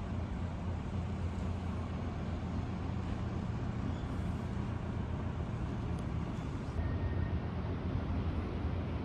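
Outdoor street ambience: a steady low rumble of passing road traffic.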